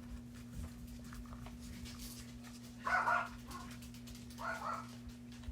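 A dog gives two short barks, the first about three seconds in and the second a second and a half later.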